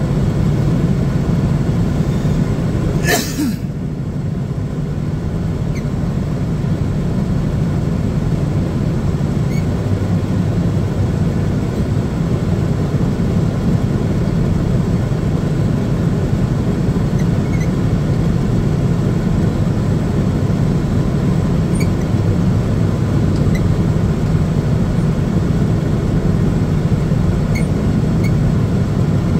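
Engine of a towbarless aircraft tug running steadily, heard from inside its cab while it tows a Boeing 787-10 held by the nose gear. About three seconds in there is a brief whoosh that falls quickly in pitch.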